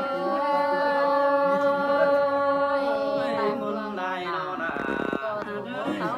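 Unaccompanied voice singing a Tai (Thái) folk song: a long, slightly wavering held note for about three seconds, followed by shorter phrases that slide up and down.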